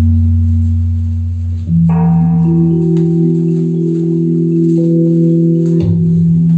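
Dance music made of long, held low tones like a drone, with a new chord of higher sustained notes coming in about two seconds in.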